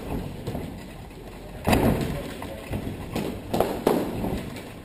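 Fighting sticks striking during stickfighting sparring: several sharp cracks and thuds, the loudest nearly two seconds in, then three more in quick succession a little later.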